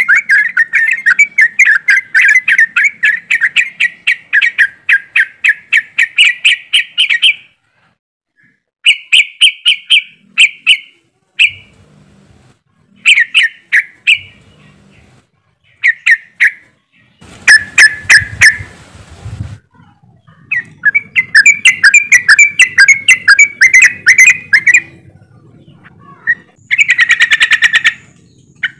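Yellow-vented bulbul (trucukan) giving loud, rapid chattering runs of notes in several bouts with short pauses between them.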